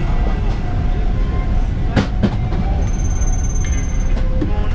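Steady low rumble of a Boeing 777 freighter's engines and airframe heard inside the flight deck, on the runway just after takeoff clearance as takeoff thrust is being brought up. A single sharp click sounds about two seconds in.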